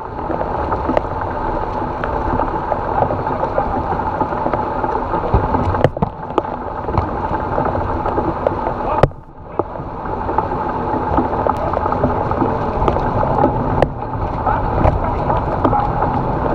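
Torrential rain pouring onto a waterlogged outdoor court and the goal-mounted camera, a dense steady hiss with a few small taps, dropping away briefly about nine seconds in.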